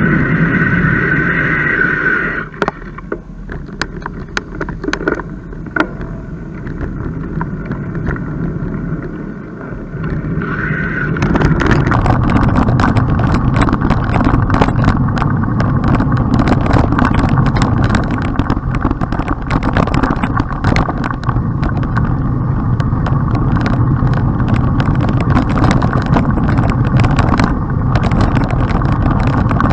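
Wind and road noise from a moving bicycle, with a constant clatter of small clicks and rattles. It gets much louder about eleven seconds in.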